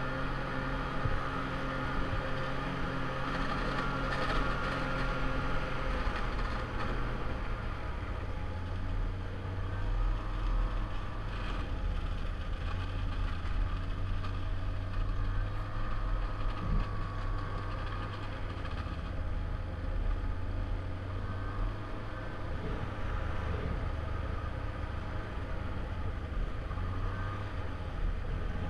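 Snowmobile engine running steadily while riding along a trail, heard from a helmet-mounted camera; the engine note drops a little about six seconds in and then holds.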